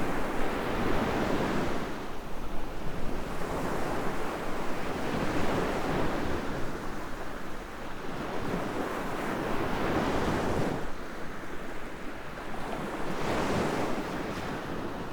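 Ocean surf breaking on a sandy beach, the wash swelling and fading every few seconds.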